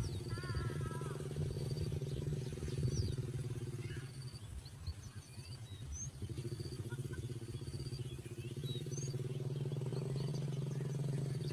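A steady low engine hum, dropping away for a couple of seconds midway and then returning. Short, high bird chirps and whistles sound over it.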